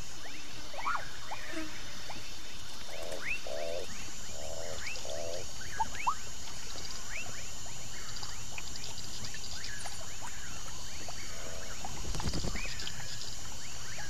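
Night chorus of insects trilling steadily, with many short chirping calls and a few bursts of pulsed croaking a few seconds in, typical of frogs. A short low rumble comes near the end.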